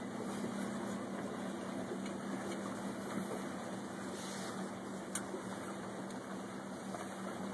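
Steady hum of the boat's electric drive motor running at low speed on 6 volts, over a wash of water noise, with one faint click about five seconds in.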